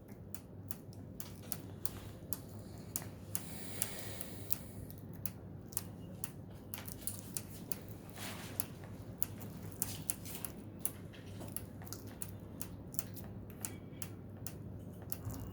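Program-selector knob of a Haier front-load washing machine clicking through its detent steps as it is turned over and over, giving a few irregular sharp clicks a second. The knob is being used to step through the machine's model codes to select the right one after a control-board change.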